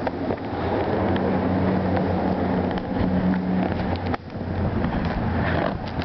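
Wind buffeting the microphone: a loud, low rush, with a steady low hum through the first few seconds that eases off just after the middle.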